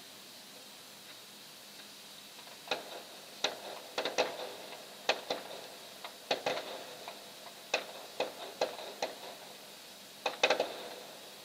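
Scattered sharp pops and cracks of distant fireworks, coming irregularly, with a little echo after some of them and the loudest cluster near the end.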